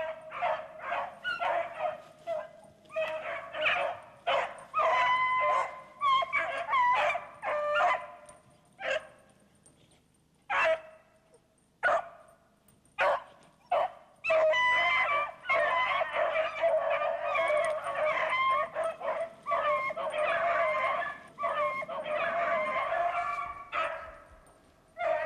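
A pack of six beagles baying together on a rabbit hunt, many overlapping voices. About a third of the way in the cry thins to a few single calls, then the whole pack gives voice again.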